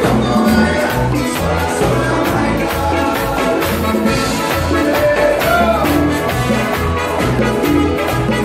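Live band playing loud, upbeat Latin tropical dance music with a steady, repeating bass line.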